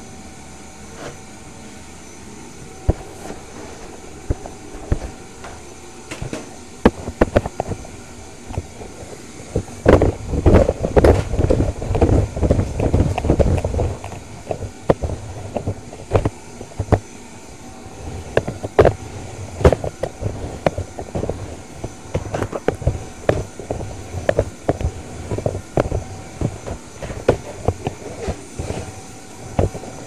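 Vacuum cleaner running steadily, with many irregular clicks and rattles over its hum that grow busiest and loudest about a third of the way in.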